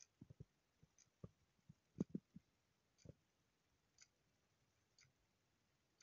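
Wall clock ticking faintly once a second. Several soft, irregular low thumps come in the first half, the loudest about two seconds in.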